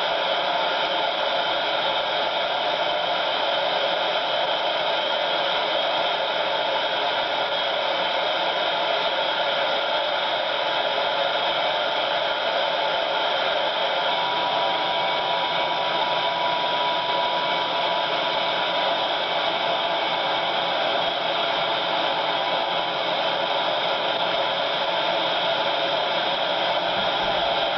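Steam cargo ship engine-room machinery running with a steady, loud rushing noise. A faint thin tone rises out of it about halfway through.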